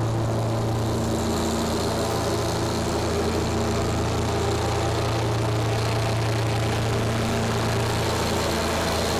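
John Deere 1025R compact tractor's three-cylinder diesel engine running at a steady, even speed.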